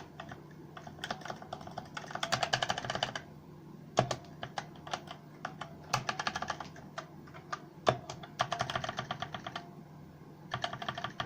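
Keys of a ZET GAMING Blade K180 mechanical keyboard with Kailh Red linear switches being pressed: scattered single keystrokes, and several bursts of rapid presses, the longest about two seconds in and about eight and a half seconds in.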